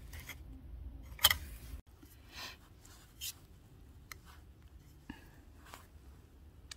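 Plastic spoon scraping and clicking against a metal camp pot while eating, a handful of short separate scrapes with the loudest about a second in.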